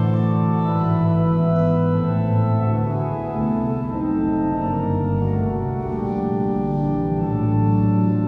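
Church organ playing a fugue: several sustained, overlapping melodic lines moving over long-held bass notes.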